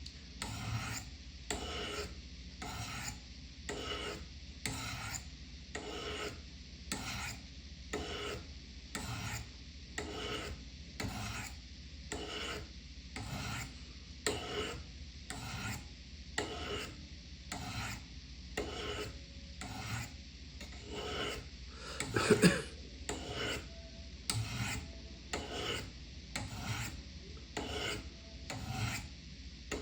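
Knife blade drawn again and again down the ceramic rods of a Spyderco Triangle Sharpmaker: a steady run of short scraping strokes, about one and a half a second. A louder knock comes about two-thirds of the way through.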